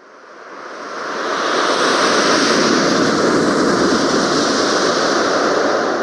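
Gust of wind rising over about two seconds, blowing hard and steady, then starting to die away near the end.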